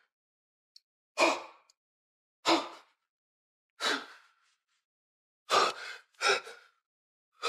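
A person's short, sharp gasping breaths, six of them about a second or so apart, each voiced and dying away quickly, with silence between.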